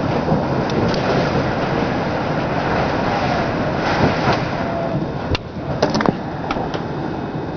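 High wind of around 40 mph gusting against and between mobile-home trailers, a loud steady roar, with a few sharp knocks a little past five seconds in.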